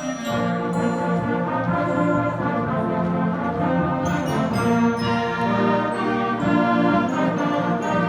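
Concert band playing a Christmas piece, brass prominent, with the low parts and fuller band coming in just after the start.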